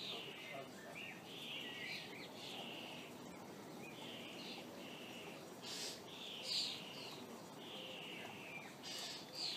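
A garden songbird singing in a run of short, quick warbled phrases, one after another, over faint outdoor background noise.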